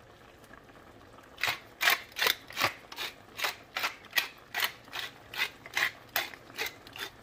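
Hand-twisted pepper mill grinding whole black peppercorns: a regular grinding click about two or three times a second, starting a second or so in.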